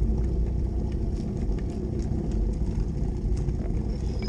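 Steady low rumble on a GoPro action camera's microphone, with scattered sharp clicks as cyclists in cleated shoes walk and wheel road bikes over brick paving.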